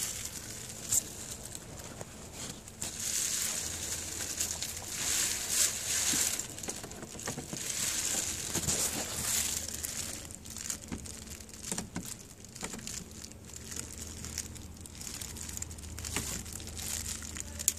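Rustling, scraping and scattered sharp clicks as a screwdriver pries plastic retaining clips out of a Mitsubishi Colt's plastic engine undertray.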